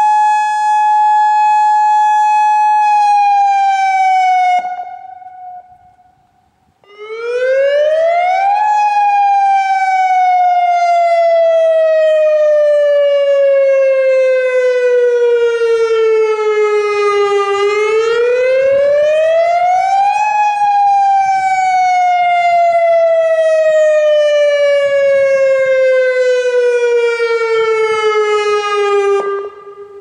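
Federal Signal EOWS 1212 electronic warning siren holding a steady Alert tone that sags in pitch and cuts out about four seconds in. After a short gap it sounds the Wail signal, rising and then slowly falling in pitch twice before cutting off abruptly near the end, loud and with all its speaker drivers apparently working.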